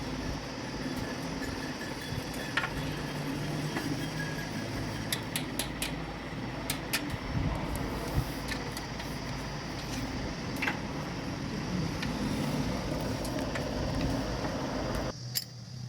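Scattered light metallic clicks and taps from steel gearbox parts being handled while a tractor's low-high shift fork and shift rod are fitted, over a steady low rumble of background noise. The background cuts off suddenly near the end.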